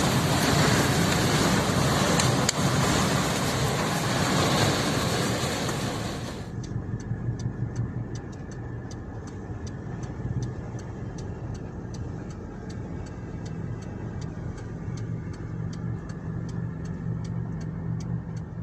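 A vehicle engine running amid loud rushing wind-like noise. About six seconds in, the sound cuts to a quieter, steady engine hum with a rapid, regular ticking.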